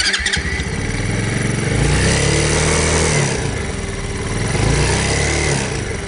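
A 125cc single-cylinder four-stroke motorcycle engine running and revved up twice, with a rattle: a vibration caused by a snapped, loose engine mount bolt.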